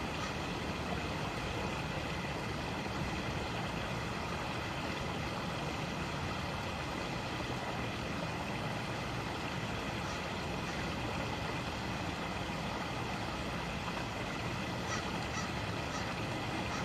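Creek water running steadily over rocks, a continuous rushing.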